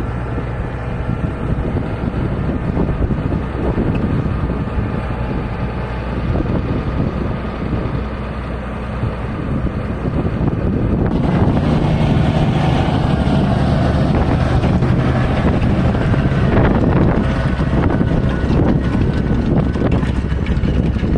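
Massey Ferguson tractor's diesel engine working steadily under load. It gets louder and brighter about halfway through.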